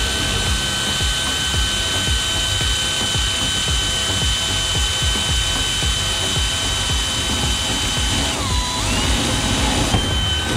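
Power drill boring holes in a door with drilling lubricant: a steady motor whine that sags in pitch about eight seconds in as the bit loads up, then climbs back.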